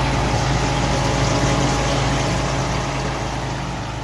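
Steady machine hum with an even whooshing noise, the sound of a Hoshizaki commercial ice machine running; it fades a little toward the end.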